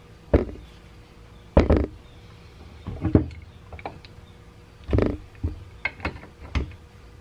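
The cast-iron housing of a 1920s General Electric induction motor and an adjustable wrench knocking and clanking against each other and the wooden floor as the motor is handled and the wrench is fitted to it. The knocks are sharp and irregular, about ten of them, the loudest about one and a half seconds in.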